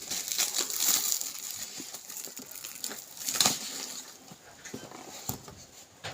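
Packaging being handled: rustling and crinkling, with a few sharp knocks. The rustling is loudest near the start and again about three and a half seconds in.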